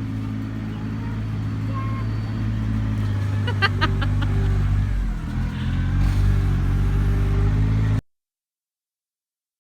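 A tractor's engine running close by and growing louder, with a few sharp clanks about three and a half seconds in and a brief dip and change in pitch about five seconds in. The sound cuts off abruptly near the end.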